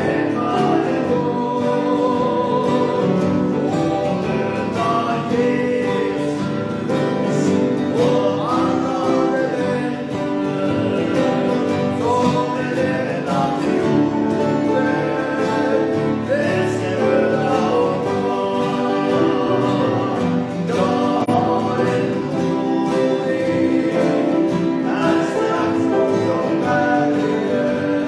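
Two men singing a hymn together to two acoustic guitars.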